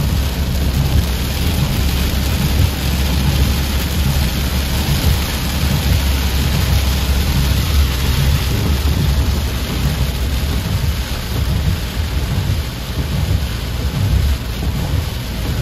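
Heavy rain pouring down steadily in a downpour, with a constant low rumble underneath.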